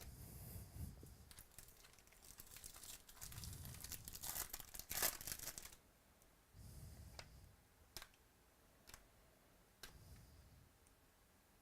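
Plastic wrapper of a trading-card pack crinkling and tearing open for about six seconds, loudest about five seconds in, followed by a few light clicks.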